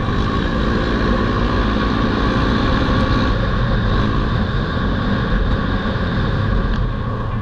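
Polaris Sportsman ATV engine running under way, its note rising a little over the first few seconds, heard from a helmet camera together with wind and tyre noise.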